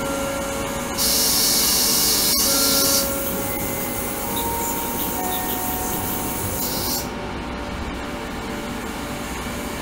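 Ultrasonic cleaning tank running, its water hissing with a few faint steady tones. A louder high hiss comes on about a second in, drops out near three seconds, returns near four seconds and stops near seven seconds, with a single sharp click in between.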